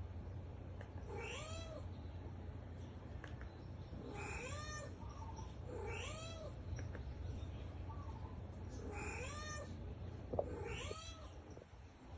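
A cat meowing over and over: about six short meows, each rising and then falling in pitch, a second or two apart, over a steady low hum.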